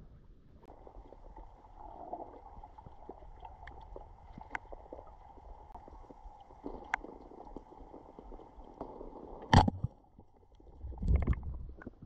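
Muffled underwater sound during a spearfishing dive: a steady dull hum with scattered clicks, a sharp knock about nine and a half seconds in, then a brief loud rush of water near the end.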